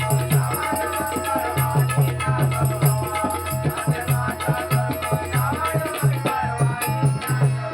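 Instrumental interlude of a live bhajan: a hand drum keeps a steady, even beat under held melody notes and a jingling, shimmering percussion.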